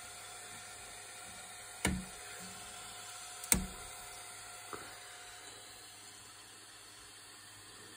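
Handling noises inside a 3D printer: a knock about two seconds in and a sharper, louder click a second and a half later, as a finished print is taken off the build plate, over a steady low background hum.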